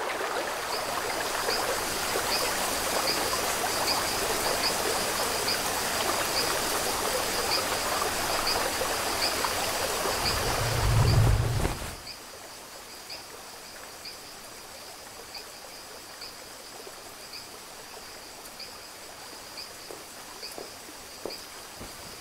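Rain falling steadily, loud for about the first twelve seconds, with a deep boom just before it drops suddenly to a quieter, more muffled rain. High insect-like chirps repeat at a regular pace throughout.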